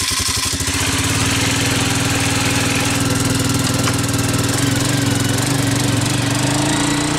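A four-wheeler (ATV) engine running as the quad is driven off slowly. The engine speeds up a little from about halfway through.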